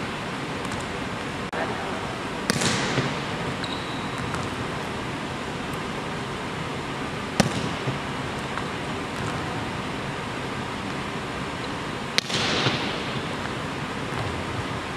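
Volleyball being struck hard in a large gym: three sharp slaps about five seconds apart, the first and last ringing out in a long hall echo, over a steady hiss.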